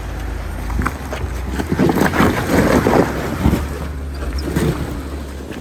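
Jeep driving on a dirt off-road trail: a low, steady engine hum under wind buffeting the microphone, with a louder, rougher burst of noise lasting a second or two in the middle.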